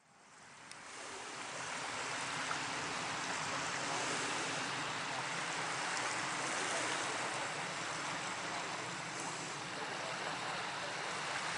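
Small waves lapping on a sandy beach, a steady wash of water noise that fades in over the first second or two.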